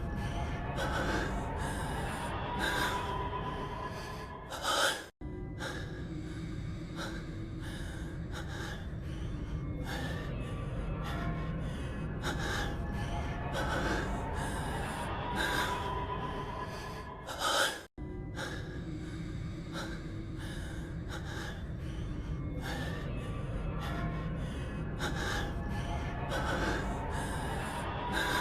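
A man's heavy breathing and gasps from an anime voice track, over background music. The short clip repeats about every thirteen seconds, each pass ending in a louder gasp and then breaking off abruptly.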